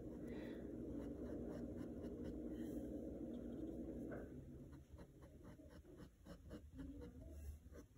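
Paintbrush dabbing and stroking paint onto a canvas, a faint series of short scratchy touches that grow clearer after about four seconds, over a low hum that fades about halfway.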